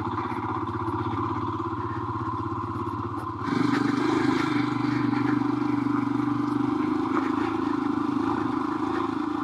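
Royal Enfield Himalayan's 411 cc single-cylinder engine, fitted with a Tec camshaft, pulling steadily in a low gear on a dirt climb. About three and a half seconds in, the engine note drops in pitch and gets louder.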